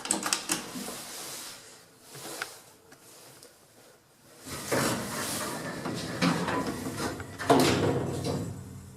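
Old lift's sliding doors in motion: a few clicks, then about halfway through a long rumbling run of the doors, with a clunk about three-quarters through.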